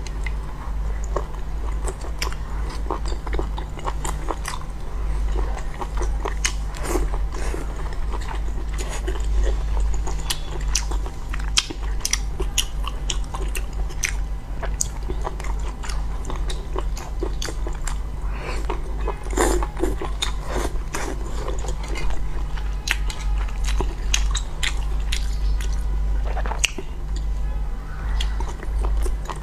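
Close-miked eating: a person biting and chewing crunchy food, with many crisp crunches one after another, over a steady low hum.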